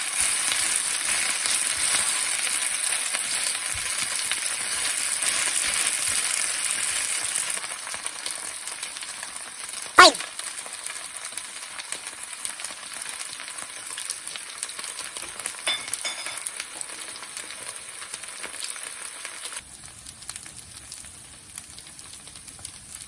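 Okonomiyaki frying in an oiled pan, a steady sizzling hiss that is louder for the first seven seconds or so and then settles quieter. About ten seconds in there is one sharp knock, the loudest sound, with a few light clicks later.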